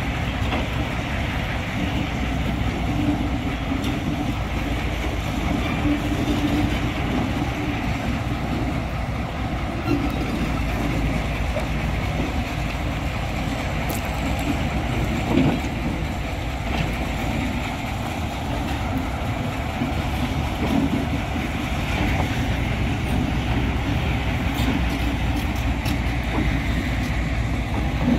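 TU2 narrow-gauge diesel locomotive's V12 diesel engine running steadily as the locomotive slowly moves a detached bogie along the rails, with a couple of short metallic knocks.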